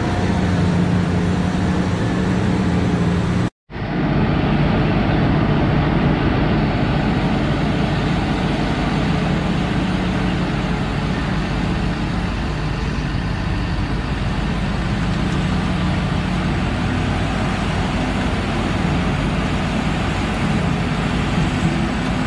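Heavy mining machinery running steadily, with a deep engine hum under a broad rumble. The sound cuts out for a moment about three and a half seconds in, then resumes with a large hydraulic mining excavator working as it loads a Komatsu 730E haul truck.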